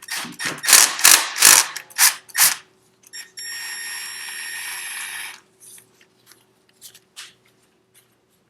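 A bolt on the oil filter cover of a Yamaha Warrior ATV engine being loosened with a 5 mm hex tool: about six loud grinding strokes, then about two seconds of a small power tool whirring with a steady whine, then a few light clicks.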